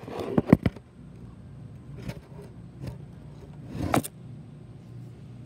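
Handling noise from a phone camera being moved: a cluster of sharp clicks and knocks in the first second, a few lighter ticks, then a louder knock just before four seconds in as it is set down on a plastic shooting pad.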